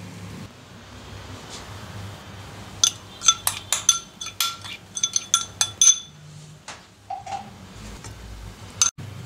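Metal spoon clinking against a bowl as it is tapped and scraped out over a steel wok: a quick run of sharp clinks with a ringing note, starting about three seconds in and lasting about three seconds, then a few softer knocks.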